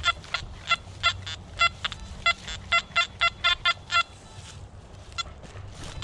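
Nokta Anfibio metal detector giving a run of short, quick target beeps as the coil sweeps over the ground, the beeps stopping about four seconds in with one more near the end.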